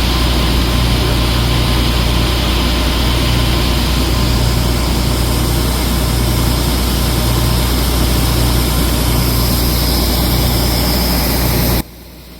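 Heavy diesel harvest machinery running steadily under load, a strong low drone with a hum that swells about once a second. It cuts off suddenly near the end.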